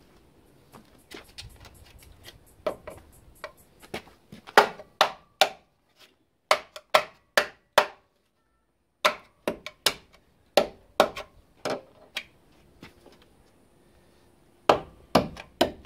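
Screwdriver tip jabbing and prying at the rusted steel of a Mitsubishi Sigma's front guard near the door hinge: a run of sharp metallic clicks and knocks, several a second, stopping for about a second midway. The probing tests how far the rust has eaten into the panel.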